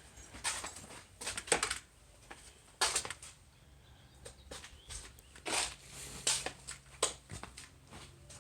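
A series of irregular short scuffing and rustling noises, a few each second, over a faint steady hum that comes in about halfway through.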